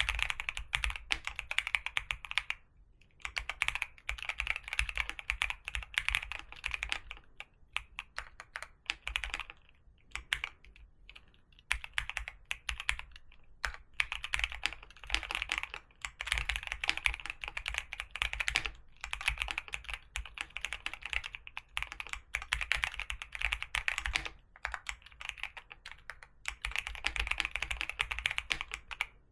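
Typing on a computer keyboard: rapid key clicks in runs of a few seconds, with short pauses between them.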